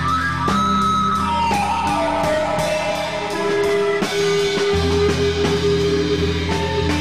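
Rock music: a guitar holding and bending notes, one line sliding down in pitch about two seconds in, over a steady bass and drums.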